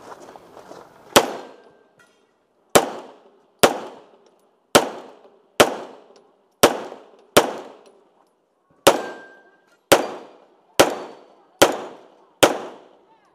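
Semi-automatic pistol firing about a dozen shots, roughly one a second at an uneven pace, each crack trailing off in a short echo. A brief ringing tone follows two of the shots.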